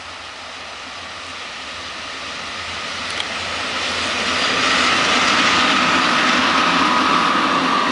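EP07 electric locomotive hauling a passenger train approaching at speed and passing close by: a rush of wheel-on-rail noise that grows steadily louder and peaks about five seconds in as the locomotive goes past, with a steady whine on top in the second half.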